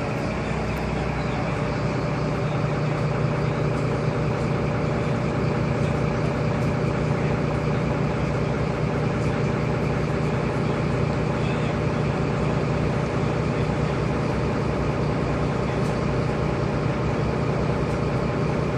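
Inside a moving Mercedes-Benz Citaro city bus: a steady low engine hum with interior fittings rattling constantly, the sign of a worn, loose-panelled bus.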